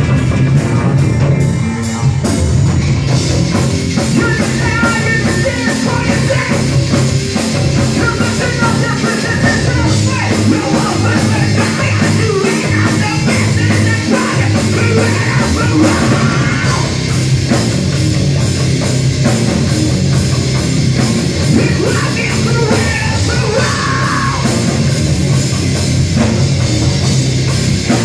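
Live heavy rock band playing loud and steady: electric guitars, bass and a drum kit keeping a driving beat, with yelled vocals over it in stretches.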